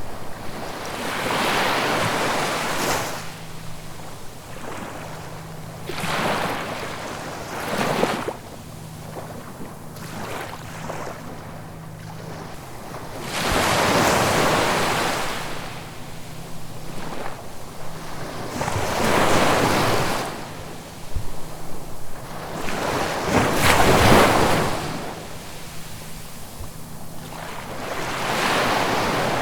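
Ocean waves breaking and washing up on the shore, each surge swelling and fading every few seconds, about seven in all.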